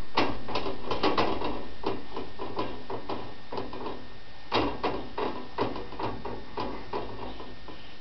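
Wire clothes drying rack clicking and rattling in irregular light knocks as a toddler shifts his weight on its rails, over a low steady hum.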